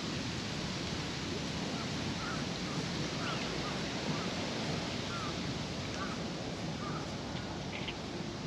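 Steady wind noise rushing and buffeting on the microphone, with a few faint short chirps in the middle.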